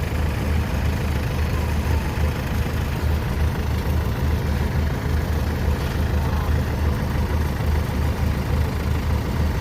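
Kubota DC93 combine harvester's diesel engine running steadily under load with a deep, even throb while towing a broken tracked tiller through a flooded field.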